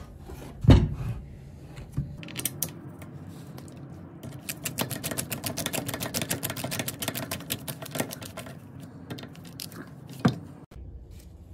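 A screwdriver driving the screws that close the circular saw's handle housing: a few separate knocks, then a run of rapid, even clicking for about four seconds, and one sharp knock near the end.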